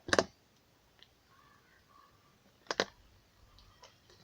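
Sharp clicks from handling a small container: a quick double click at the start and another nearly three seconds later, with a few faint ticks between.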